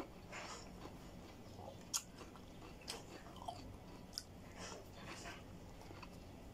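A person chewing and biting food, with several crisp crunches scattered through it, the sharpest about two seconds in.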